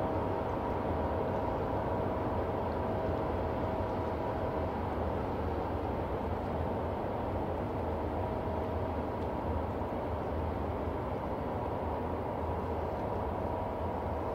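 Cargo ship's diesel engine and machinery running under way, a steady low rumble with a faint steady whine on top.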